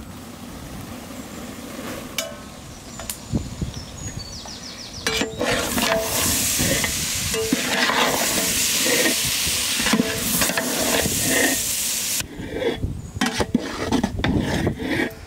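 Squeezed soya chunks added to a big pot of masala that has fried until the oil floats, sizzling loudly from about five seconds in. Near the end a large ladle stirs them, with irregular knocks and scrapes against the pot.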